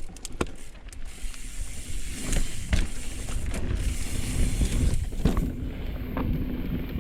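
Bicycle rattling and clattering over roots on a dirt trail, with the rumble of the tyres; it grows louder after about two seconds.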